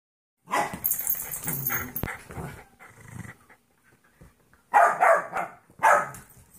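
A golden retriever mix puppy and a Jack Russell/rat terrier mix play-fighting and vocalising in rough bursts for the first couple of seconds, with a sharp knock about two seconds in. Two loud outbursts follow about five and six seconds in.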